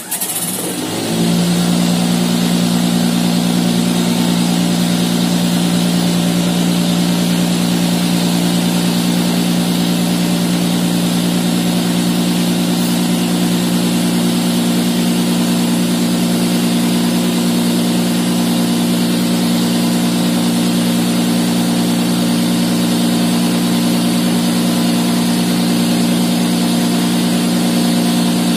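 Cotton candy machine starting up: the motor of its spinning head winds up over about the first second, then runs at a steady hum.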